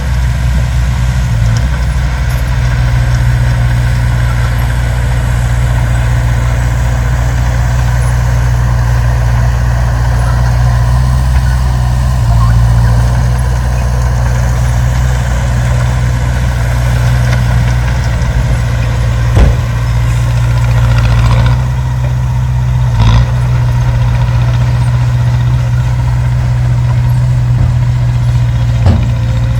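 Heavy diesel engine of an earthmoving machine running steadily with a deep drone, with a few sharp metallic knocks in the second half.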